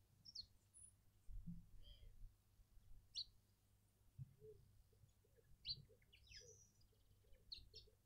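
Faint high chirps from small birds, with a run of low, evenly spaced hooting notes, about two or three a second, starting about four seconds in: the bubbling call of a Burchell's coucal. A few soft low thumps are also heard.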